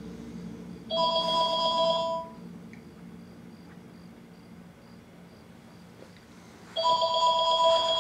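A telephone ringing twice, each ring a burst of steady electronic tones about a second and a half long, the rings about six seconds apart: an incoming call.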